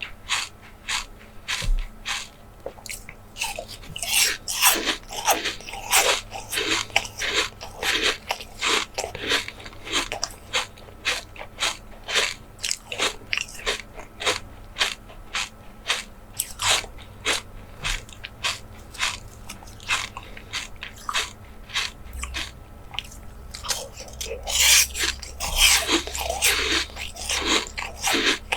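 Close-miked eating sounds of someone biting and chewing soft jelly desserts: a steady run of short smacking bites and chews, two or three a second, busier near the end.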